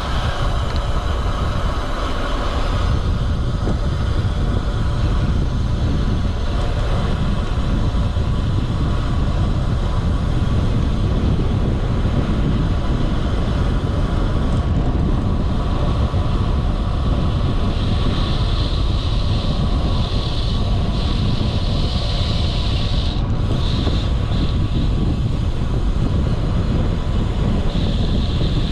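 Steady wind rush and low rumble on the microphone of a camera riding along on a road bike, with a faint high hiss coming and going in the second half.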